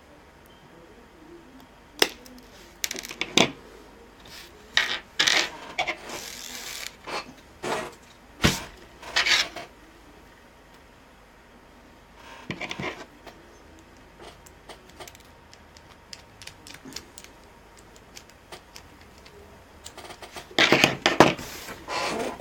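Metal clicks, clinks and short scrapes as a piece of a laptop's thin metal plate is worked and chipped off. They come in scattered bursts, with a denser run of them near the end.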